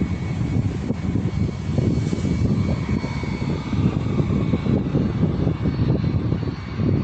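Jet airliner engines running on the airfield: a steady low rumble with a faint high whine.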